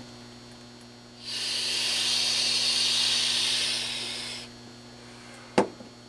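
A steady hiss lasting about three seconds, then a single sharp click near the end, over a faint low mains hum.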